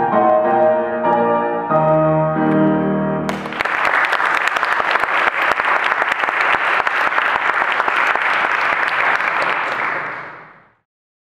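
Grand piano playing the closing chords of a song, then an audience applauding from about three seconds in; the applause fades out near the end.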